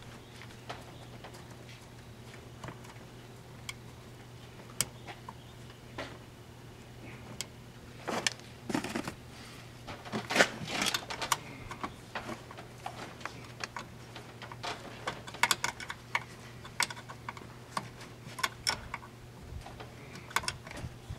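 Scattered small clicks and rattles of hands fitting a red ring-terminal wire onto the positive terminal of a golf cart's solenoid coil among its wiring, busiest about eight to eleven seconds in and again from about fifteen seconds, over a steady low hum.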